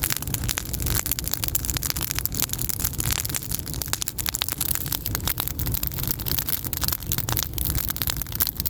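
Wood campfire crackling with a dense, irregular run of sharp pops and snaps over a steady low rumble.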